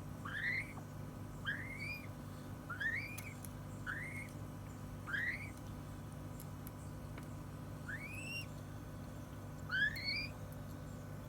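A bird giving a series of short rising chirps, about one a second, seven or so, with a pause of a few seconds in the middle. A steady low hum runs underneath.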